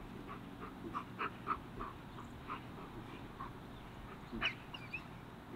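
Black German Shepherd whining in short, high yips: a quick run of them in the first few seconds and a louder one past the middle, over a steady low hum.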